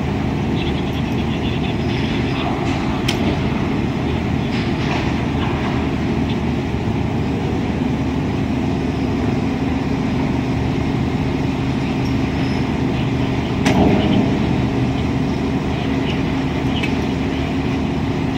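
Heavy machinery running with a steady drone and hum, with a few short knocks, the loudest about two-thirds of the way through.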